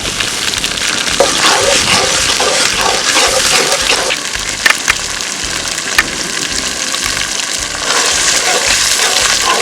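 Food frying in hot oil in a cooking pot: a loud, steady sizzle, with a few sharp clicks about halfway through.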